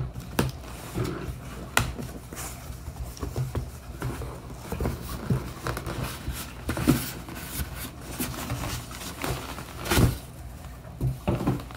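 Hands unpacking a shipping box: cardboard flaps folded open, a styrofoam cooler lid handled and lifted off, and a plastic liner rustled, making a string of irregular scrapes, knocks and crinkles over a faint steady low hum.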